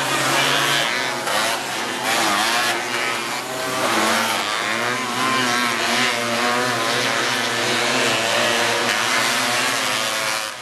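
Several off-road racing buggy engines running hard past the trackside, their pitch rising and falling as the drivers rev through and out of the turns.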